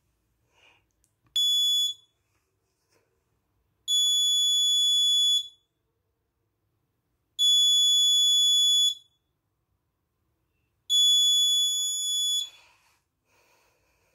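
Alarm buzzer on a Raspberry Pi Pico DS1307 real-time-clock board going off: a high-pitched beep, one short one and then long beeps of about a second and a half, repeating every three and a half seconds or so. It signals that the set alarm time has been reached.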